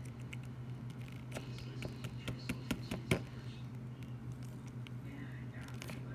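Slime being squished and worked by hand, making an irregular run of small wet clicks and pops, the loudest about three seconds in. A steady low hum runs underneath.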